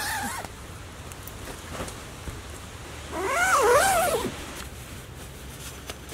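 A Samoyed's drawn-out whining howl about three seconds in, its pitch wavering up and down twice over about a second. Soft rustling of sleeping-bag fabric runs underneath.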